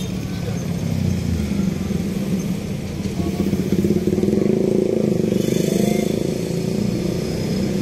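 Road traffic with a motor vehicle engine running close by, growing louder and higher from about four seconds in and easing again near the end.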